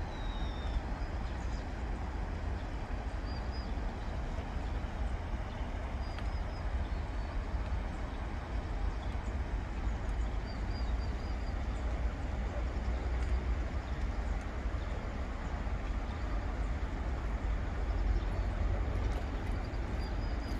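Steady outdoor background noise: a constant low rumble under an even hiss, with faint small-bird chirps now and then.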